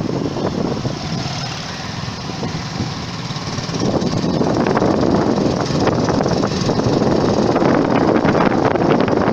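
Motorcycle engine running as the bike is ridden along the road, getting louder about four seconds in.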